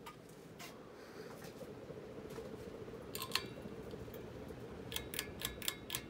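1998 Hunter Low Profile II 52-inch ceiling fan running on high in reverse: a steady motor hum and air sound. A few sharp metallic clicks come about three seconds in and several more near the end.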